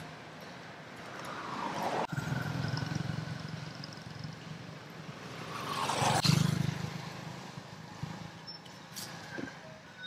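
Two road vehicles passing by one after the other, the first loudest about two seconds in and the second about six seconds in. Each engine's pitch falls as it goes past, over a steady low hum.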